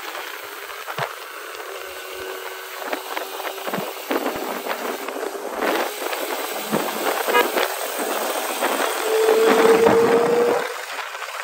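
Street traffic noise of motorbikes and cars. About nine seconds in, an engine note rises slightly in pitch for a second and a half, the loudest moment.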